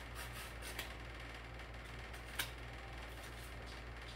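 Box cutter slicing open a wrapped mail package: a few faint scrapes and clicks, the sharpest about two and a half seconds in, over a steady low hum.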